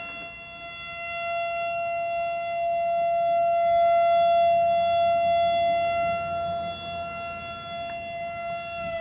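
Nuclear power plant emergency warning siren sounding one steady, high wailing tone, growing louder over the first few seconds and easing off toward the end.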